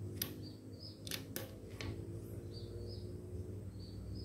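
Quiet handling of a PCP air rifle between shots: a few faint clicks and taps in the first two seconds over a low steady hum, with faint bird chirps.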